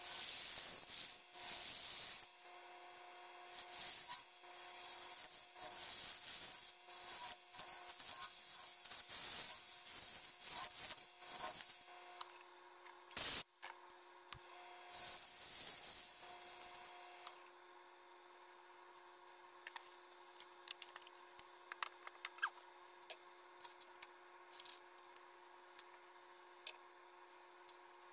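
A turning tool cuts a spinning wood blank on a lathe, making a rough scraping hiss in repeated passes over the lathe's steady hum. This runs for about twelve seconds and comes back briefly a few seconds later. After that only the hum remains, with scattered clicks and knocks as the tool rest is moved.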